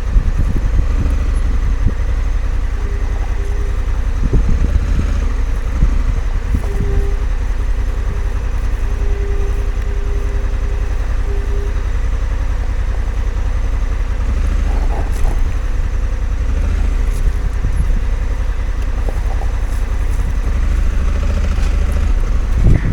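Honda Africa Twin CRF1100L's parallel-twin engine running as the motorcycle is ridden, under a heavy low rumble with a few brief knocks.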